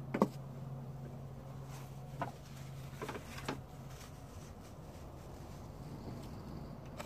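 A few light clicks and taps of small tools and silver pieces being handled on a workbench, the sharpest about a quarter second in, over a low steady hum that fades about halfway through.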